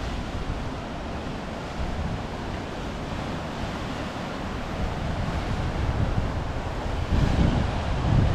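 Sea waves washing on the shore, with wind buffeting the microphone; the wind gusts get stronger near the end.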